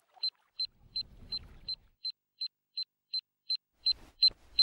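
Digital alarm clock beeping its alarm: short, high, single-pitched beeps repeating evenly about three times a second, with faint low noise between the beeps around a second in and again near the end.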